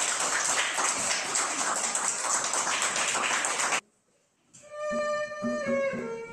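Audience applause that cuts off abruptly about four seconds in. After a brief silence an erhu starts a bowed melody, with light taps on a hand drum.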